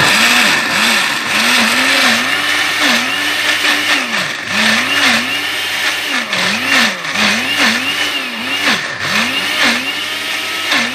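Electric blender grinding soaked urad and moong dal with green chillies and spices into a thick batter. It starts up suddenly, and the motor's pitch rises and falls over and over as the blades work through the dense mixture.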